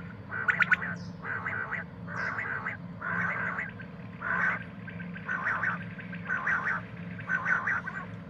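Common quail calling: a steady series of about eight short, harsh notes, roughly one a second.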